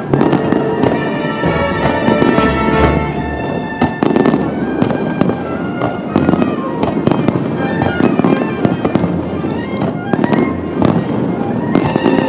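Aerial fireworks shells bursting, many sharp bangs in quick succession, with music playing over them.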